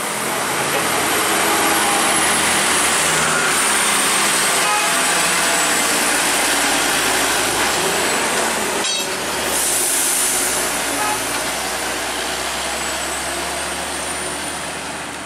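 Heavily loaded multi-axle diesel lorry driving past close by: engine and tyre noise, loud as it comes alongside and easing as it pulls away, with a thin high whine wavering in pitch throughout.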